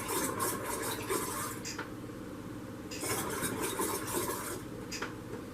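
Clinking and rubbing of bottles and kitchenware being handled, in two stretches of small clicks and scrapes.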